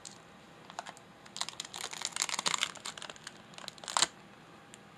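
Clear protective plastic film being peeled off a digital alarm clock's display, crackling and crinkling in clusters from about a second in, with one sharp, loud crackle near the end.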